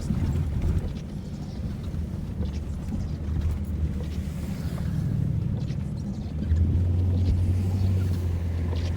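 Vehicle engine running and tyres rolling through deep snow, heard from inside the cabin: a steady low hum that grows louder about two-thirds of the way in.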